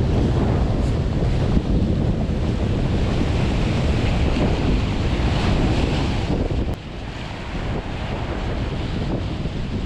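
Wind buffeting the microphone over the wash of sea waves, a steady rumbling hiss that eases a little about two thirds of the way through.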